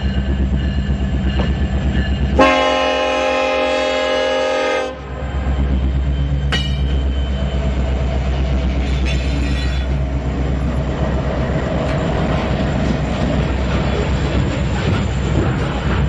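Norfolk Southern freight train's diesel locomotives approaching and rolling past close by, their engines running steadily; about two and a half seconds in the locomotive's air horn sounds one chord for about two and a half seconds, then the engines and wheels continue rumbling past.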